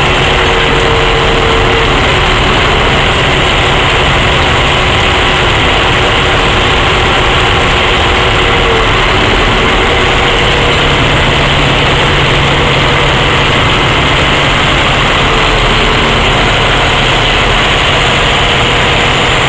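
Plasser & Theurer track maintenance machines at work: an SSP ballast regulator's diesel engine and ballast gear running loudly and steadily as it rolls slowly past, with a tamping machine working alongside.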